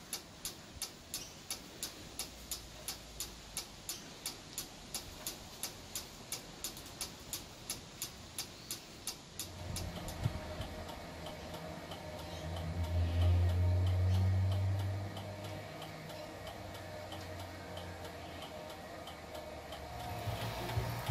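Flasher relay of a Hella lightbar's wig-wag lamps clicking evenly, about two and a half clicks a second. About halfway through the clicks fade under a steady low hum from the rotating beacon motors of a second, red Hella lightbar, which swells louder for a couple of seconds, with faint ticking still underneath.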